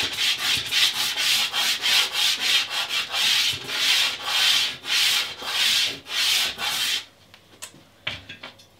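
Dark green soft pastel being rubbed back and forth into toothy pastel mat paper by hand, in rapid repeated strokes that stop about seven seconds in.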